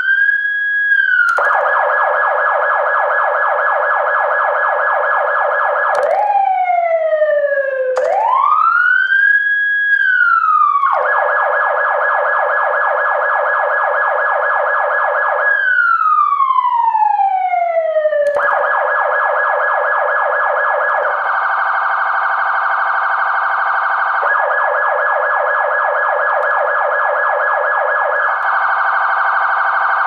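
Electronic emergency-vehicle siren cycling through its tones. Long wail sweeps rise, hold and glide down, near the start, about 8 seconds in and about 16 seconds in. Between them are stretches of rapid yelp, with a faster warble from about 21 to 24 seconds.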